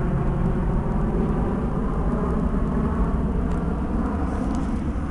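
Boeing 737 airliner's twin jet engines at climb power just after takeoff, heard from the ground as a steady low rumble that eases slightly near the end as the aircraft draws away.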